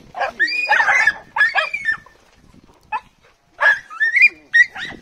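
Jagdterrier puppy yelping and whining in high-pitched bursts with a short pause in the middle: a hunting terrier excited at the sight of prey.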